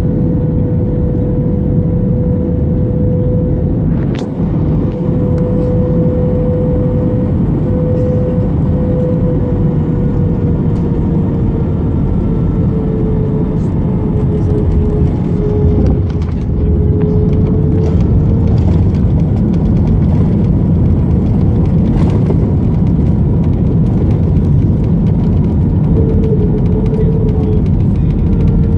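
Airbus A321 cabin noise heard over the wing during landing and rollout: a loud, steady engine and airflow rumble with a humming tone that drifts lower midway. A sharp knock comes about four seconds in and another about twenty-two seconds in, and the rumble grows a little louder from about sixteen seconds on.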